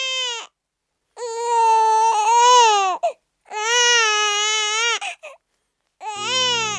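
An infant crying in long, loud wails, three or four cries with short gaps of silence between them. Soft music begins under the last cry near the end.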